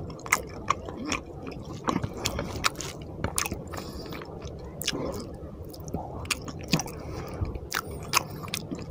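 A person chewing a mouthful of rice and fish curry eaten by hand, with wet squishing and an irregular stream of sharp mouth clicks.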